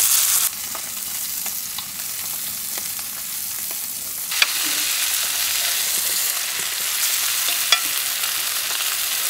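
Steak frying in a cast-iron skillet on a gas camp stove: a steady hissing sizzle. It eases slightly about half a second in and comes back up after a sharp click a little past four seconds; another short click comes near the end.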